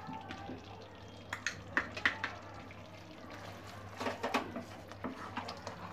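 A wooden spatula stirring and scraping a thick masala in a pan, with several short scrapes and knocks, under a steady low hum.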